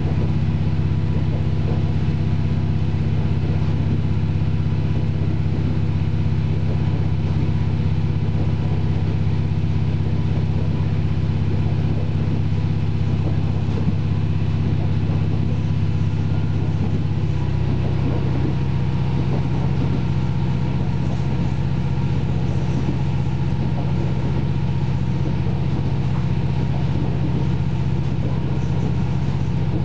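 Cabin sound of a KiHa 40 diesel railcar under way: the underfloor diesel engine runs with a steady low hum, its note shifting about halfway through.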